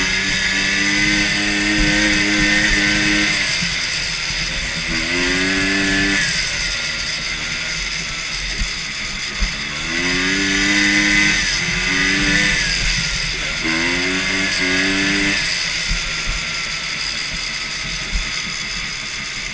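250cc Rotax two-stroke engine on a custom racing lawn mower, running and revving, its pitch climbing and dropping back several times.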